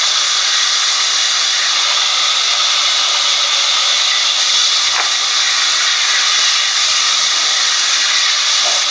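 Sawmill band saw running, its blade ripping lengthwise through a wooden plank fed past it: a steady, loud hiss.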